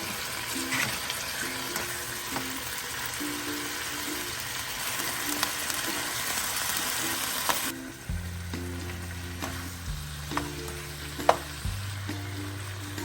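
Food sizzling in hot oil in a pan, with occasional clicks and scrapes of a stirring utensil. The sizzle drops much quieter about eight seconds in. Light background music with plucked notes plays under it, joined by a bass line near the end.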